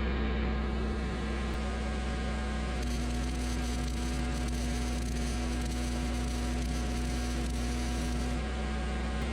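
Hobart Handler 140 MIG welder laying a bead with a steady buzzing sizzle, over the steady hum of a Generac 7000EXL generator running under the welding load. The weld runs short on shielding gas, with wind blowing it away and the bottle almost empty.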